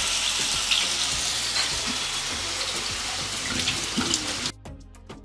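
Marinated beef chaap sizzling in hot soybean oil in a non-stick frying pan. About four and a half seconds in, the sizzle cuts off suddenly and light background music takes over.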